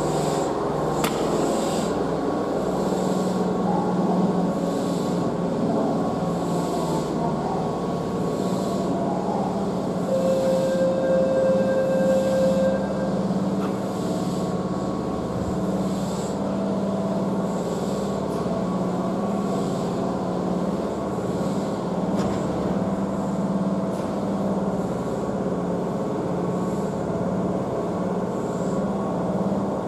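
Keihan 1000 series electric train standing at the platform with its equipment running, a steady hum. A faint high blip repeats about once a second, and a brief steady whine joins a third of the way in.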